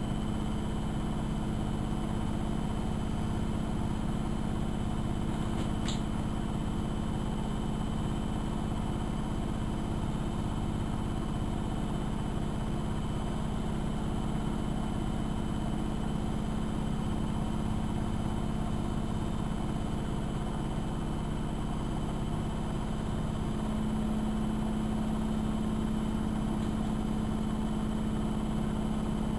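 AEG Electrolux Lavamat L6461 washing machine running with a steady mechanical hum, its motor tone growing a little stronger about 24 seconds in.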